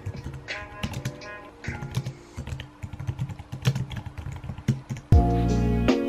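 Typing on a compact wireless keyboard with round keycaps: quick, irregular key clicks over soft background music. About five seconds in, louder music with a deep bass cuts in abruptly and covers the typing.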